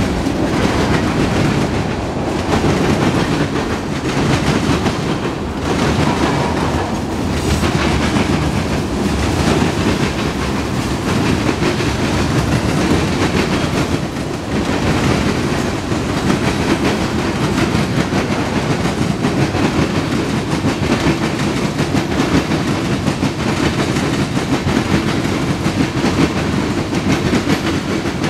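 Freight train cars, tank cars and boxcars, rolling past: a steady, loud rumble of steel wheels on the rails, with clicking as the wheels cross the rail joints.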